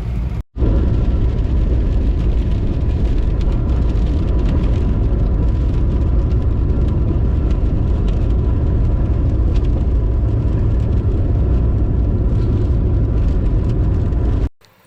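Car driving in heavy rain: a steady, loud rumble of engine and tyres on the wet road, with a faint steady whine. It starts abruptly about half a second in and cuts off abruptly near the end.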